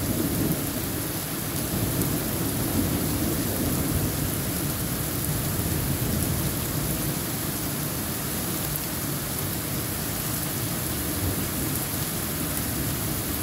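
Heavy thunderstorm rain falling steadily on foliage, with a low rumble of thunder that is strongest at the very start and then eases into the hiss of the downpour.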